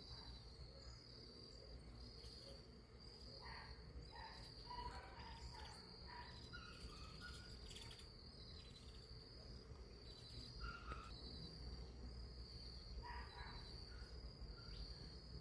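Faint outdoor ambience: an insect trilling in a high, steady, repeating pulse throughout, with short scattered bird chirps, most of them in the first half and a few near the end.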